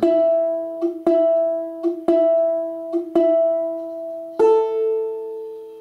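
Balalaika strings struck with the thumb in thumb pizzicato. Four even plucks about a second apart on the same note, then one on a higher note about four and a half seconds in, each note ringing and fading.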